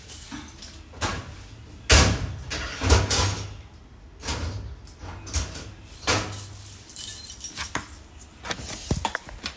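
Keys jangling amid rustling and handling of the phone, broken by short clattering bursts with the loudest sharp knocks about two and three seconds in.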